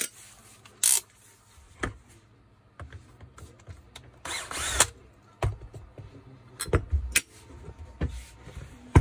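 Makita cordless drill-driver spinning in short bursts to back out the gear-housing screws of an angle grinder, the longest run about four seconds in. Sharp clicks and knocks of metal parts being handled fall between the bursts.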